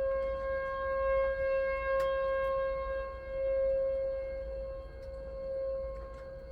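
Outdoor tornado warning siren sounding one steady tone, its loudness swelling and fading every couple of seconds.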